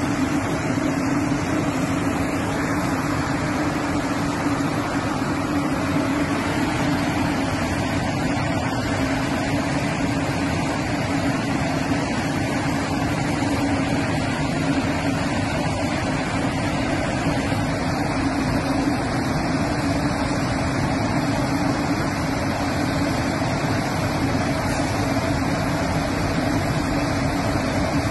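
Automatic train washing plant running as coaches roll through it: a steady mechanical hum with the rush of rotating brushes and spray water.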